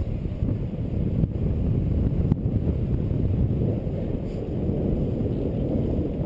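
Low, steady rumble of inline skate wheels rolling over an asphalt path, mixed with wind buffeting the microphone, with two faint clicks about a second and two seconds in.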